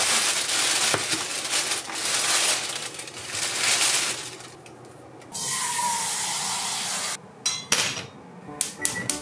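Thin plastic shopping bag rustling loudly as groceries are pulled out of it. It is followed by a steady rushing noise for about two seconds, then several sharp knocks and clicks near the end as a saucepan is handled on the gas hob.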